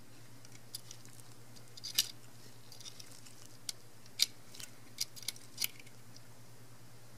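Small sharp clicks and ticks of metal tweezers against a camera's metal chassis and a tiny coil spring as the spring is picked out of its seat; about seven clicks, the loudest about two seconds and about four seconds in.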